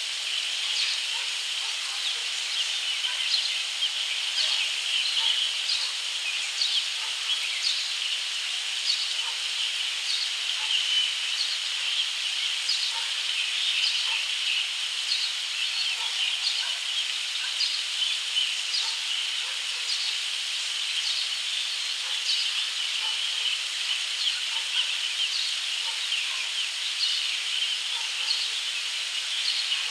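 Short bird chirps repeating about once a second over a steady high-pitched hiss of outdoor background noise.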